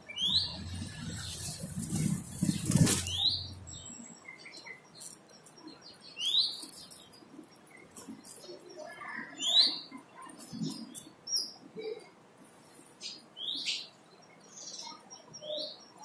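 Red-vented bulbul at its nest giving short upward-sweeping chirps every two to three seconds. A close flutter of wings and rustling fills the first few seconds, then light rustles and clicks of the nest material.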